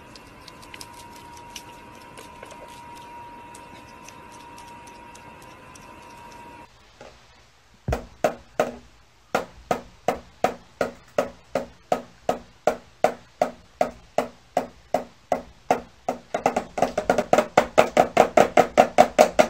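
Small toy drum struck with a stick in an even beat, about two strikes a second, quickening to about four a second near the end. Before the drumming starts there are a few seconds of faint steady hum with a thin high tone.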